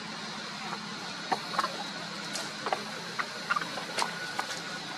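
Scattered light taps and small splashes from a baby macaque's hands and feet moving in a shallow basin of water, about eight short clicks over a steady hiss.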